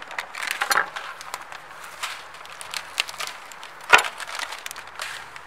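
Plastic packaging of hazelnut brittle being picked up and handled, with scattered crackling clicks and one sharp knock about four seconds in.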